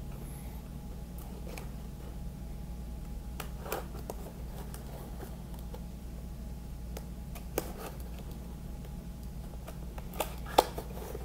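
Fingernails picking and scratching at packing tape on a cardboard box, with scattered small clicks and scrapes and a sharper click near the end, over a steady low hum.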